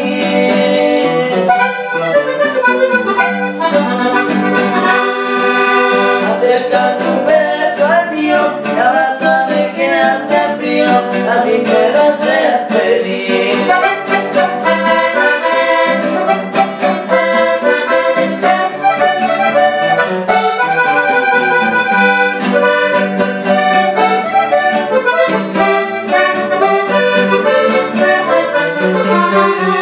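Accordion-led music with a steady beat.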